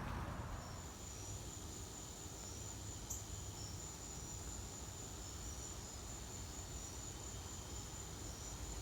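Insects trilling: one continuous, steady, high-pitched drone with fainter short chirps beneath it, over a low background rumble of wind.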